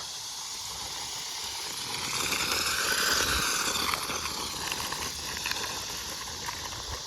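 Traxxas Slash 1/16 RC truck driving on pavement while towing a toy RC car: an electric motor whine and tyre noise that swells and bends up and then down in pitch about two to four seconds in.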